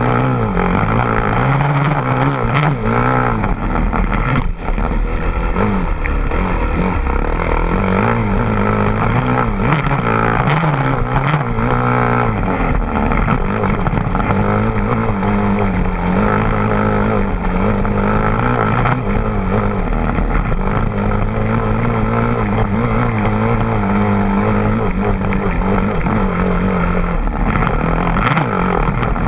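An engine running steadily, its pitch drifting slightly up and down.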